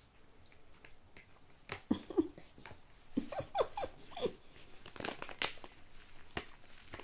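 A toddler's soft wordless vocal sounds: a few short sounds that rise and fall in pitch, about two seconds in and again between three and four seconds. After them comes a light rustle of a paper tissue as his hand is wiped.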